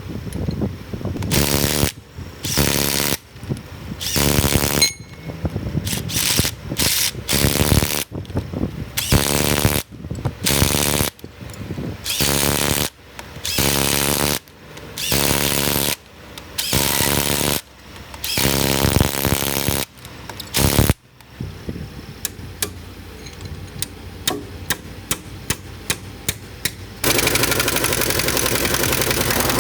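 Power tool run in more than a dozen short bursts of about a second each, with a buzzing hammer tone. Then come a few sharp clicks, and near the end a steady rushing noise.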